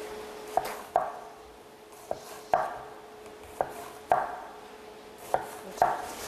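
Small kitchen knife slicing a large onion into strips on a cutting board: about eight sharp knocks of the blade on the board, unevenly spaced, several in quick pairs.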